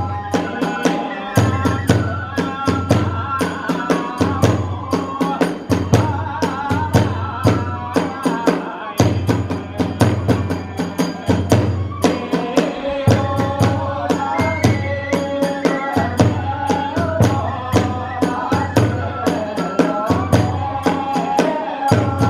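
Kagura hayashi music: fast, driving drumming with rapid clashes of small hand cymbals and deep drum beats about every second and a half, under a flute melody.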